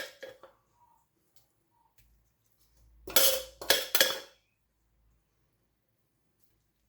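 Serving utensils clinking against plates and pots while food is dished up: one sharp clink at the start, then three ringing clinks close together about three to four seconds in.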